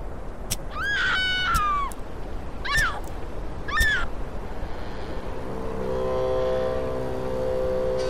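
Four short, high animal-like cries, each sliding down in pitch at its end, over a steady low noise with a few sharp clicks. Music with long held notes fades in about six seconds in.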